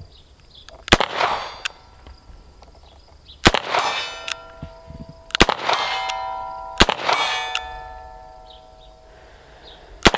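Rock Island Armory Model 206 .38 Special snub-nose revolver fired a shot at a time, a few seconds apart, at IPSC targets 50 yards off. Each hit is answered by the long ringing of a struck steel plate.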